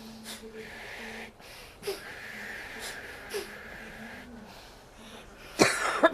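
A person's short, sharp, wheezy breaths, then two loud coughs near the end.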